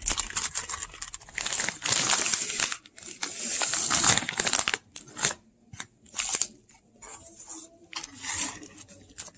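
Plastic food bags, a bag of frozen mini wontons and a bag of sliced rice cakes, crinkling and rustling as they are handled. It comes in irregular bursts, long and loud for the first four and a half seconds, then shorter and fainter.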